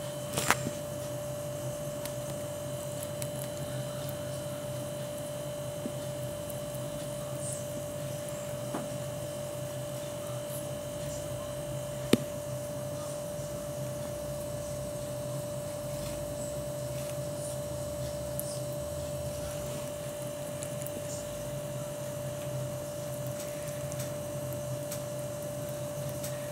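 Steady hum with a constant mid-pitched tone, and a few small sharp clicks: one about half a second in and a louder one about twelve seconds in.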